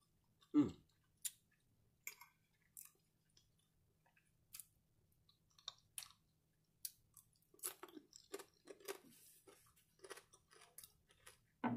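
Close-miked chewing of crispy bacon: scattered crunches and mouth clicks, coming thicker in the last few seconds.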